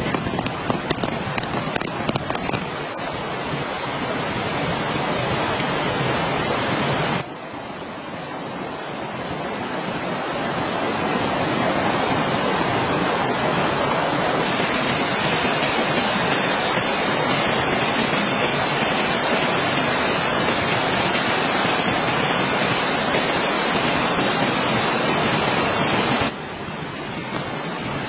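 Steady rain, a dense even hiss. It changes abruptly in level and tone twice, at about 7 seconds and near the end.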